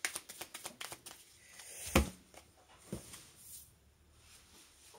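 Oracle cards being shuffled by hand: a quick run of flicking clicks in the first second. Then two sharp knocks about a second apart, with a little rustling.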